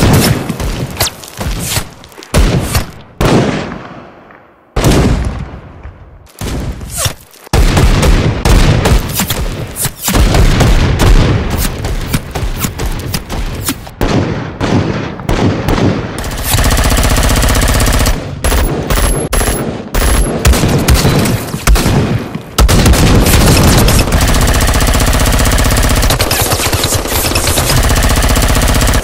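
Gunfire: a run of separate shots with echoing tails, then from about 16 seconds in two long bursts of rapid automatic fire with a short break between them.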